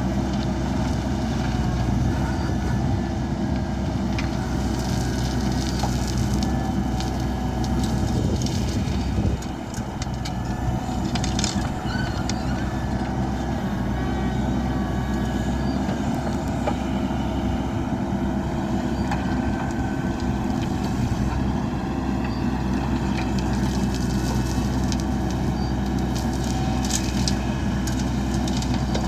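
Heavy diesel engine of earthmoving machinery running steadily, with scattered clanks and knocks and a brief dip in level about nine seconds in.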